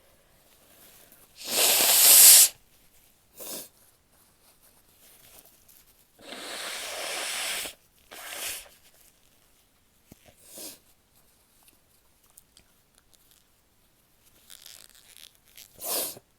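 A woman sneezing several times, some sneezes let out and some stifled, with short breaths between. The loudest, open sneeze comes about two seconds in, a longer breathy one follows a few seconds later, and a quick sharp one comes near the end.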